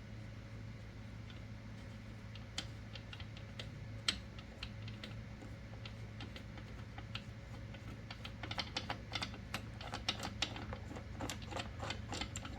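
Small metal clicks and ticks as the swage and priming pins are twisted out of their block on a progressive reloading press: a few scattered clicks at first, then quick clusters of them from about two-thirds of the way in.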